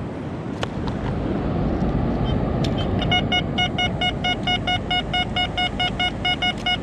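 Metal detector giving a steady run of short, evenly spaced beeps of one pitch, about five a second, starting about three seconds in, as it signals a target in the sand. A steady rush of outdoor background noise lies underneath.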